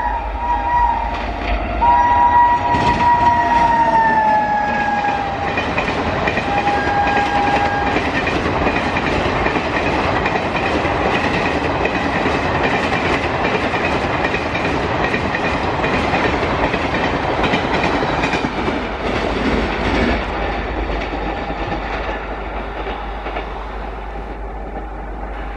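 A speeding Indian Railways electric locomotive sounds its horn twice on approach, the second long blast dropping in pitch as it passes, then a shorter blast. Then the Duronto Express coaches rush past with wheels clattering over the rail joints, the noise easing near the end.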